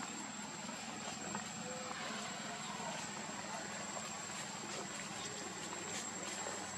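Steady outdoor background: an even hiss with a thin, constant high-pitched whine and a few faint scattered ticks.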